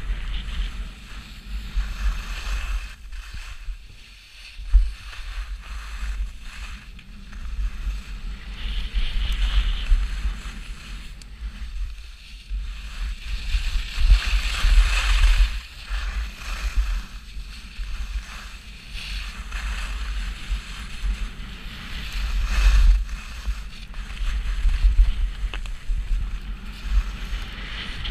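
Skis hissing and scraping over packed snow, swelling and fading with each turn, over a steady low rumble of wind buffeting the microphone.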